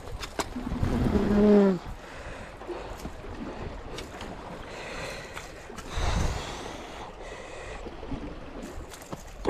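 Sea washing against shoreline rocks, with wind buffeting the microphone. About a second in comes a man's short wordless vocal sound, and a low thump follows about six seconds in.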